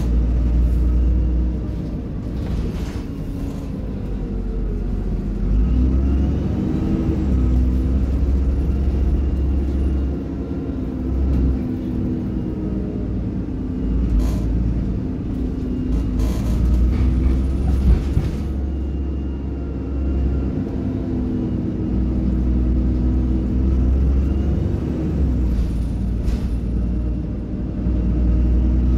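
Diesel bus engine and ZF automatic gearbox, heard from on board, with a low rumble. The engine note rises and falls several times as the bus pulls away and changes gear, and there are a few short sharp noises about halfway through.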